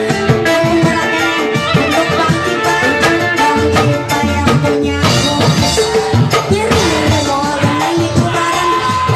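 Live band music with drums and a sustained melody line, played loud and without a break.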